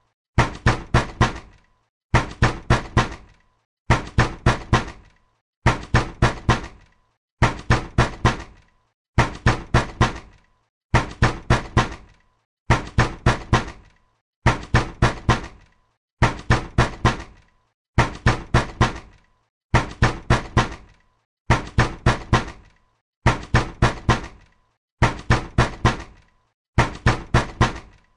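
Angry knocking on a door: four hard, quick knocks at a time, the group repeating at an even pace about every two seconds.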